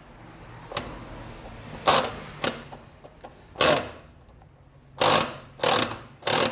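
Brastemp washing machine's transmission (gear set) knocking as the machine is tested in spin with the actuator pulled. Sharp knocks come at irregular intervals, about eight of them, bunched closer in the second half. The technician calls it a light noise and takes it to mean the gear set needs replacing.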